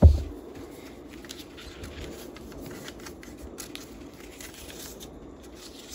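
A low thump at the very start, then faint rustling and small clicks of hands handling an Instax mini film pack against a cardstock film holder.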